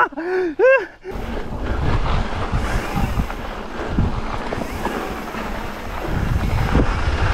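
A couple of short shouted whoops at the start, then riding noise from a mountain bike on a rough trail: wind rushing over the microphone, with the rumble and rattle of tyres and bike over rocks and gravel.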